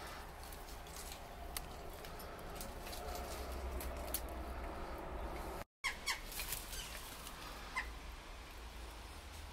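Quiet ambience with a steady low rumble of wind or handling on the microphone and scattered light clicks and crackles, the sharpest just after the sound cuts out for a moment a little past halfway.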